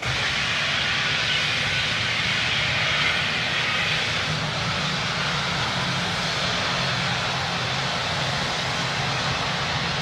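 Gas jetting and burning from a gas grill's tank after its pressure regulator failed in the heat: a loud rushing hiss that begins abruptly and runs on steadily.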